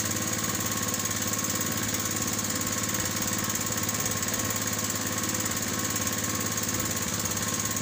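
Small engine on an outrigger fishing boat running at a steady speed, a constant drone with a fast, even firing rhythm.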